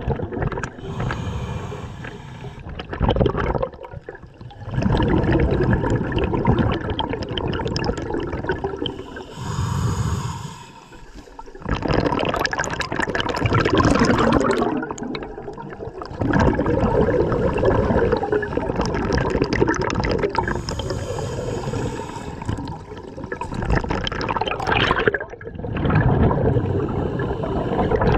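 Scuba diver breathing through a regulator underwater: exhaled bubbles gurgling and rushing past the mask, in several long stretches with short quieter gaps between breaths.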